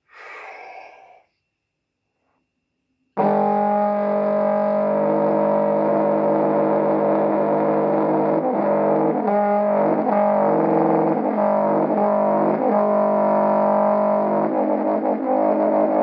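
Trombone comes in abruptly about three seconds in and plays long, held notes with a distorted, effects-laden tone, the notes shifting in pitch several times in the middle and near the end.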